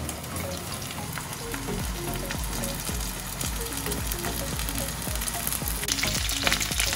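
Starch-coated chicken pieces shallow-frying in oil in a frying pan, a steady sizzle that grows louder and more crackly from about six seconds in.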